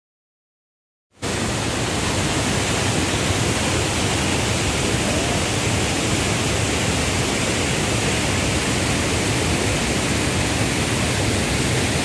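Waterfall rushing: a steady, loud hiss of falling water that starts abruptly about a second in.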